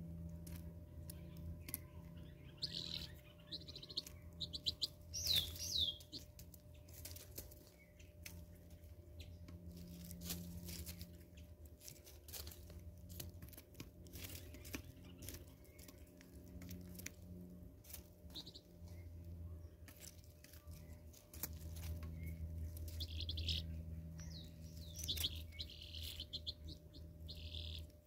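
Helmeted guineafowl pecking at fruit on a stone slab: many sharp taps of its beak on the stone. Small birds chirp in the background a few seconds in and again near the end.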